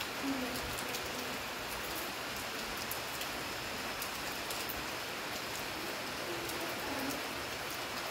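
Steady rain falling on leaves: an even hiss with scattered sharp ticks of single drops.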